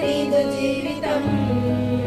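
A small group of women singing a Christian hymn together from songbooks, in unison with held, sliding notes over a steady low hum that grows stronger partway through.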